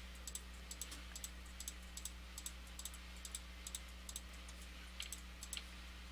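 Computer mouse clicking repeatedly, a couple of short clicks a second at uneven spacing, over a low steady electrical hum.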